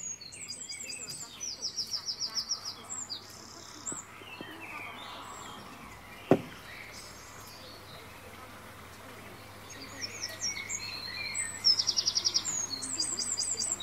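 Songbirds chirping and trilling, high and fast, with the same phrases returning near the end as in a looped nature recording. A single sharp tap a little past the middle is the loudest sound.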